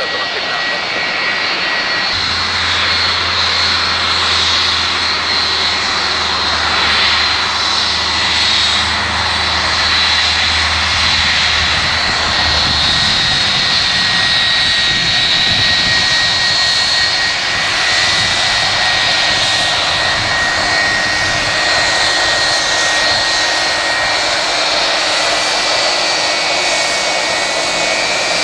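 Boeing 757-200's twin turbofan jet engines running at taxi power as the airliner taxis and lines up on the runway: a steady jet noise with a high whine held throughout.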